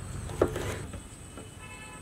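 A kitchen knife cutting through a tomato and knocking once on a plastic cutting board, about half a second in.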